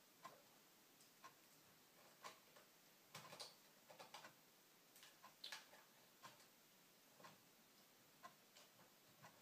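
Near silence with faint ticking about once a second, and scattered small clicks and taps from a small screwdriver driving the tiny screws that hold an SSD in a laptop's drive bay.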